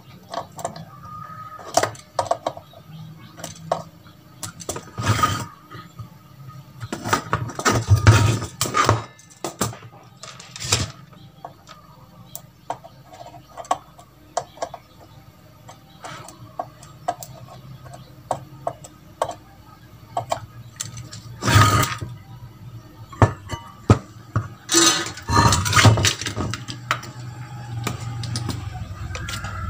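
Bench repair handling on a car amplifier: sharp clicks and clacks of a spring-loaded desoldering pump and of the circuit board and its aluminium heatsink being handled, with several louder clattering bursts among the irregular clicks.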